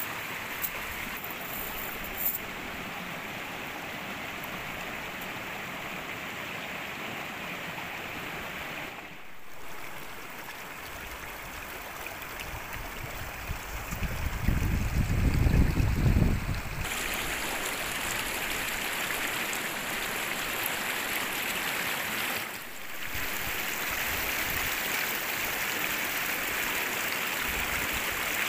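Flowing water rushing steadily, with a louder low rumble for a few seconds about halfway through and two brief dips in the sound.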